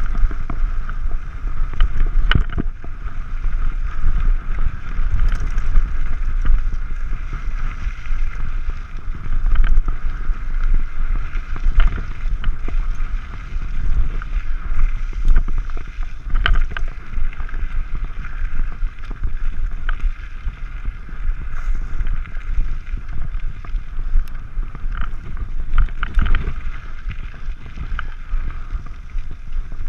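Mountain bike riding down a rough dirt singletrack: a steady low rumble of wind and trail vibration on the camera microphone, with frequent clicks and knocks as the bike rattles over rocks and bumps.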